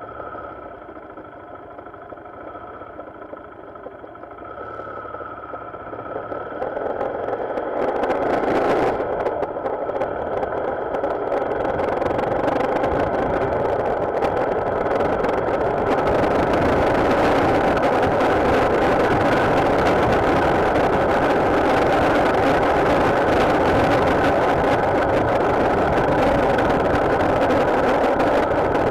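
Motorcycle engine idling with a steady tone, then pulling away about six seconds in. The engine and rushing wind and road noise build up over the next several seconds, then hold loud and steady as the bike rides at speed.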